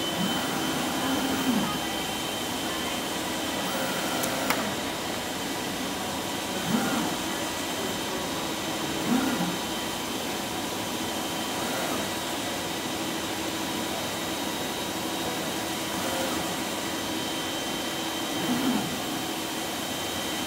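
Colex Sharpcut flatbed cutting table running as it cuts coroplast sign board: a steady hum with a high whine from the machine and its vacuum hold-down bed. Every few seconds the cutting head's drive motors give a short whirring sweep as it moves, and there is a sharp click about four and a half seconds in.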